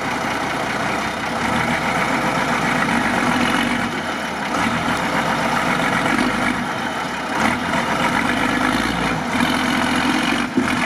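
Mercedes-Benz Unimog's diesel engine running at low revs while the truck crawls sideways up onto a concrete slab.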